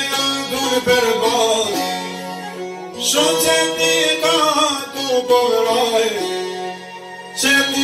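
A man singing a mournful Albanian folk song to strummed long-necked lutes, in long wavering phrases that break off briefly about three seconds in and again near the end.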